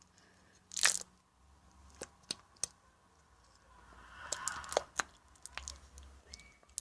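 Squeezing a nearly empty plastic glue bottle: scattered small clicks and crackles, a short hiss about a second in, and a longer hiss around four to five seconds as the last glue and air are forced out.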